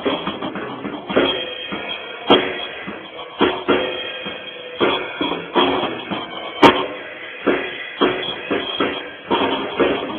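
Drum kit played solo: a busy, irregular run of drum and cymbal strikes, with one especially sharp, loud hit about two-thirds of the way through.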